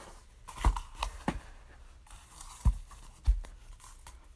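Cardboard firework cones being set down one after another on a hard surface: about five dull knocks, with paper rustling from handling between them.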